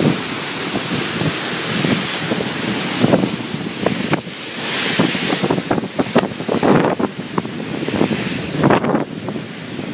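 Ocean surf with wind buffeting the microphone, and a louder hissing rush of water about five seconds in.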